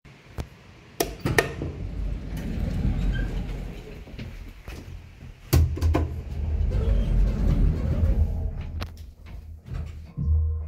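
Sounds of a 1964 Sound hydraulic passenger elevator in use: sharp knocks and a low rumble as the doors move, two sharp clicks about halfway through as a car button is pressed, and a steady hum setting in near the end as the lift gets going.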